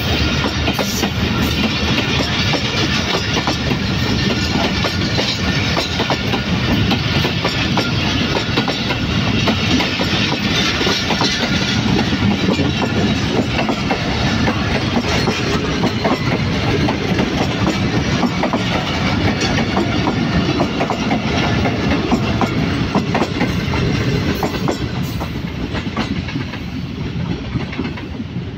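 Passenger coaches of an express train rolling past close by, their wheels clattering over the rail joints in a steady rumble. The sound eases off near the end as the last coach moves away.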